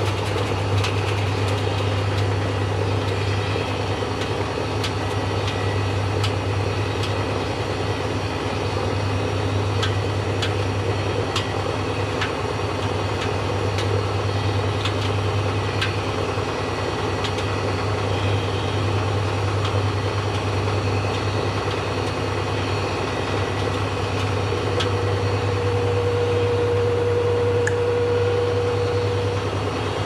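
Front-loading washing machine running with its drum turning: a steady motor hum with faint scattered ticks. A steady whine joins in about 25 seconds in.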